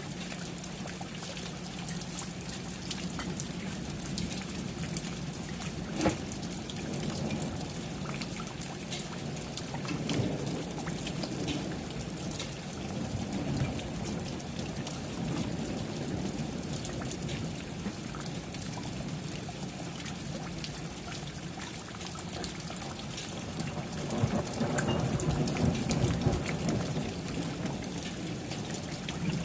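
Steady rain falling, with low rolls of thunder about ten seconds in and again, building, near the end. There is one sharp tap about six seconds in.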